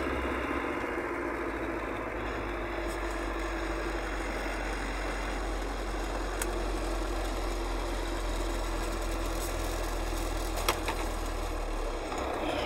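Diesel bus under way on a highway, heard from inside the cab: a steady engine drone with road noise, and two brief clicks about six and ten and a half seconds in.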